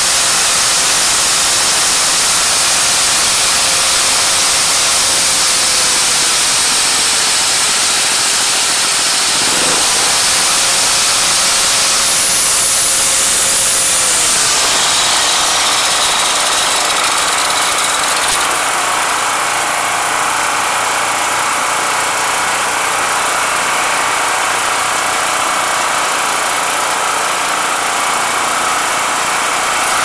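Jiangdong PowerWise 3500 generator's small single-cylinder engine running steadily, now keeping going after its carburetor was replaced. A faint whine and hiss over the engine stop about halfway through and the running sound changes.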